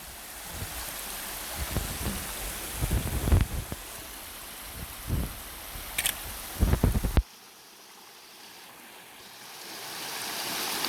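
Flowing river water with wind buffeting the microphone in low thumps. About seven seconds in the sound drops off abruptly, then the rushing water slowly grows louder again.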